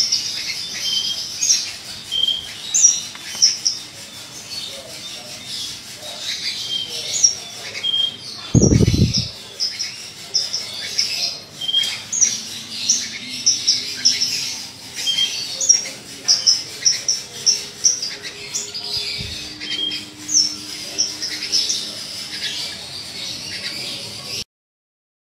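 Caged Branjangan Parva (a Horsfield's bush lark) singing: a long run of short, high chirps and squeaky notes, over and over. A loud dull thump about eight and a half seconds in, and a fainter one later.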